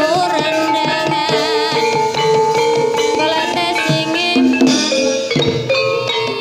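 Music accompanying an ebeg hobby-horse dance: hand drums beat under a melody of tuned, struck notes, with a wavering lead line near the start.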